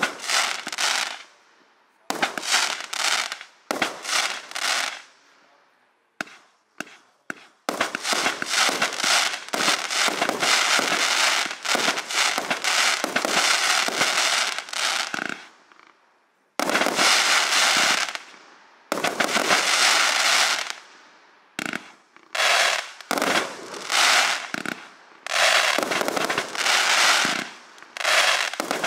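A 72-shot compound firework cake firing shot after shot, each aerial break followed by the dense, fizzing crackle of crackling chrysanthemum stars. The crackling runs almost unbroken through the middle stretch, with short gaps between volleys elsewhere.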